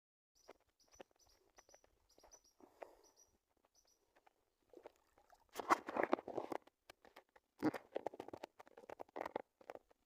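Small bird chirping in short, high notes, in little groups over the first four seconds. From about five and a half seconds, louder irregular rustling and knocking takes over.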